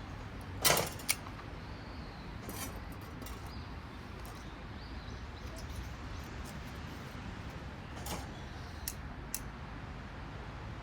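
Wood campfire crackling: a steady low hiss with scattered sharp pops, a few in the first seconds and a cluster of three about eight to nine and a half seconds in.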